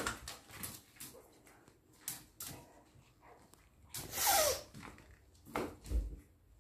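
A dog and a cat play-fighting on a tiled floor: scattered paw and claw clicks and scuffles, a short cry falling in pitch about four seconds in, and a low thump near the end.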